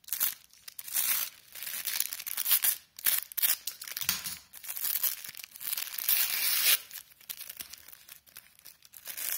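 The thin red wrapper of a pack of firecracker belts crinkling and tearing in irregular bursts as it is unwrapped by hand, quieter near the end.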